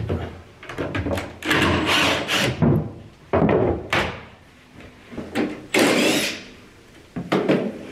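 Handling noise from a plastic water tank and the wooden panels around it being worked on: several separate bursts of scraping, rubbing and knocking, each up to about a second long, the loudest about two seconds in and again about six seconds in.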